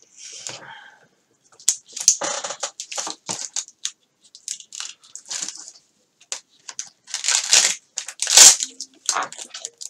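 Adhesive-backed Velcro strips being handled, torn and peeled: a run of short, scratchy tearing and crinkling noises, loudest about seven and a half and eight and a half seconds in.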